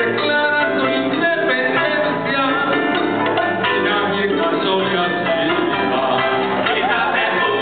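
Live band music with a man singing lead into a microphone over plucked-string accompaniment.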